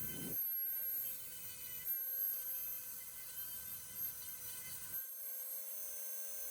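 Dremel rotary tool running at speed with a steady high whine, its abrasive head working rust off the steel parts of a Raleigh Chopper; the rougher grinding under the whine drops away about five seconds in.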